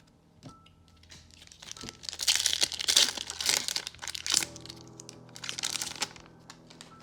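Foil wrapper of a Magic: The Gathering booster pack crinkling and tearing as it is ripped open by hand, in rustling bursts about two seconds in and again near the end.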